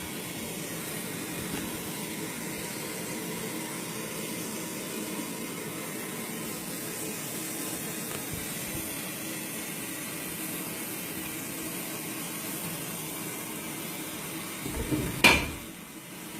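Soldering torch flame hissing steadily on copper pipe. A single sharp metallic clack comes about a second before the end.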